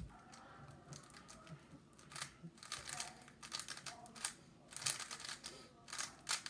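Rapid plastic clicking and clacking of a magnetic 3x3 speedcube (Weilong WR M V10) being turned fast during a solve. The turning is sparse at first and becomes a dense run of quick clicks from about two seconds in.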